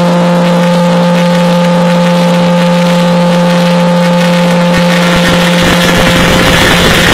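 A very loud car-audio sound system rig, the F250 Mega Truck's, blasting one long steady buzzing tone held without a change in pitch.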